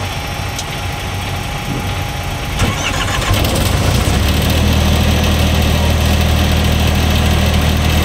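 An engine running steadily, then a click about two and a half seconds in, after which a second engine starts up and settles within a second into a louder, steady low drone. The source is a truck's diesel engine or the diesel refrigeration unit of its loaded trailer.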